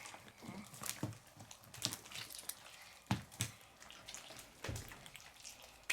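Slime being squished and pulled in the hands, making soft, scattered wet clicks and pops at irregular moments.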